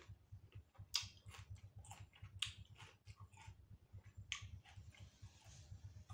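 Faint close-up chewing of crisp fresh cucumber: a run of short crunches and mouth clicks, over a low steady hum.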